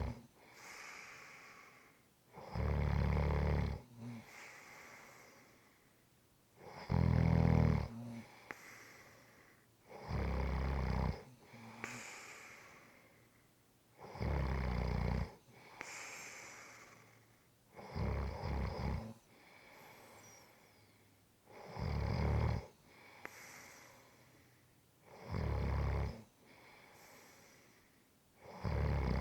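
A person snoring in a steady rhythm: about seven loud snores, each about a second long and coming roughly every four seconds, with softer breathing between them.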